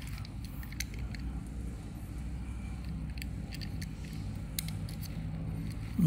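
Scattered light clicks and taps from a small die-cast toy pickup truck being handled, picked up and turned over in the hand, over a low steady hum.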